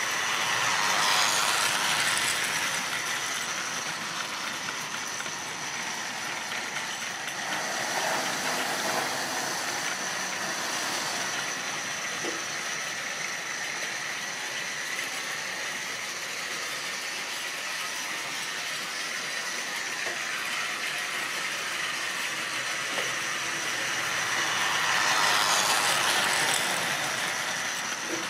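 Model railway train of open goods wagons running on the track: a steady whir and rattle of the locomotive motor and wheels on the rails, growing louder about a second in and again near the end as the train comes close.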